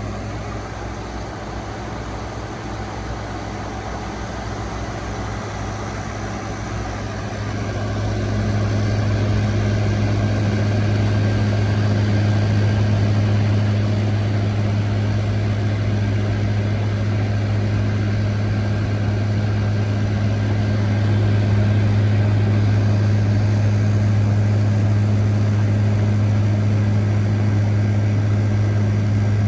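2023 General Electric 5,000 BTU window air conditioner running on high cool: a steady low hum over fan noise, which grows louder about eight seconds in and then holds.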